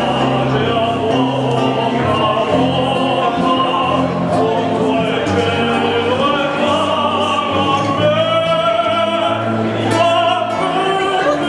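Male voice singing in an operatic style, with long held notes and vibrato, accompanied by a plucked classical guitar.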